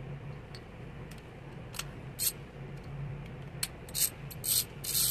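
Short metallic clicks and clinks from a chrome ratchet and sockets being handled over their plastic case. They come in quick clusters through the second half and are loudest near the end, over a steady low hum.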